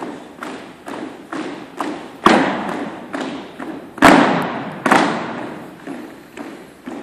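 A drill squad's shoes striking a wooden gym floor in marching cadence, about two steps a second, echoing in the hall. Three much louder stamps come about two, four and five seconds in.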